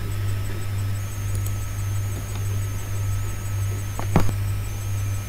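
Steady low electrical hum with a faint high-pitched whine over it, and two short clicks about four seconds in.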